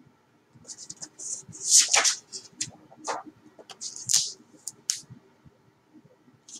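A large hardcover picture book being handled: a series of short paper-and-cover rustles and swishes as it is closed and turned over, the loudest about two and four seconds in.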